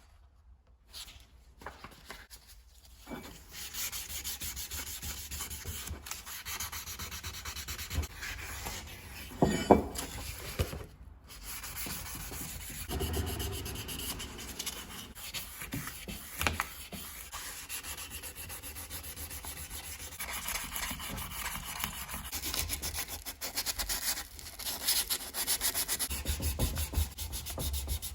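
Hand sanding of a brass gasket cutter's parts: sandpaper rubbing back and forth in quick, steady strokes. It starts about three seconds in, and there is a brief knock near the middle.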